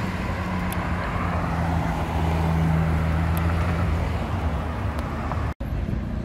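Red Ferrari supercar's V8 engine running at low, steady revs as the car cruises past, loudest about halfway through. It fades, and near the end there is a sudden cut to quieter street traffic.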